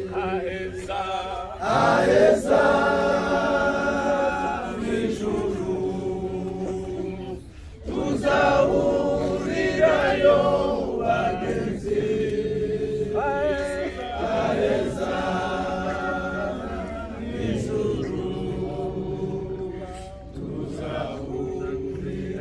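Mourners at a graveside singing together without accompaniment, in long, drawn-out phrases with brief pauses between them.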